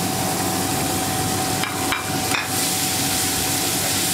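Chopped onion, garlic paste and whole spices sizzling steadily in hot oil in a wok, with a few quick knocks about two seconds in as the spatula strikes the pan.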